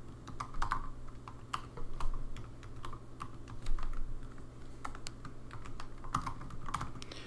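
Typing on a computer keyboard: irregular keystroke clicks at an uneven pace, over a low steady hum.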